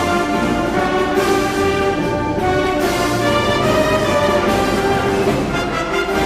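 Pep band brass playing a lively tune, with cymbal or drum strokes, drenched in added arena-style reverb.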